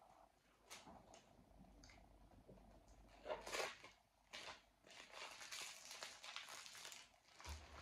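Clear plastic food wrapping crinkling and rustling as it is picked and torn open with a small knife: a few short crackles, a louder burst about three and a half seconds in, and a longer stretch of rustling about five seconds in.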